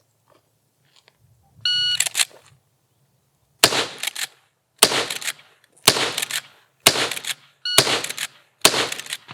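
A shot timer's start beep, then six shots from a .357 Magnum lever-action rifle, fired about a second apart as the lever is worked between them, for a six-shot string timed at 7.01 seconds.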